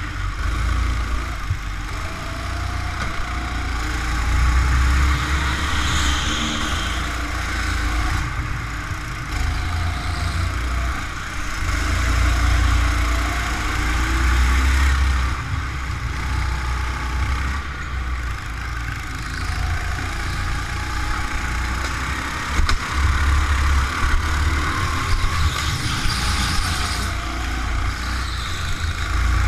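Indoor go-kart engine running on track, its pitch rising and falling again and again as the driver throttles through the corners, over a heavy low rumble.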